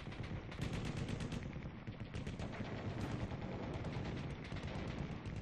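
Rapid automatic gunfire in bursts, many shots a second with short breaks between bursts.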